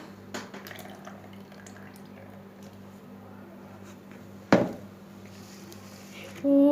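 Faint wet squishing and dripping of homemade yogurt slime being poured and handled, with one sharp knock about four and a half seconds in. Someone starts humming a tune near the end.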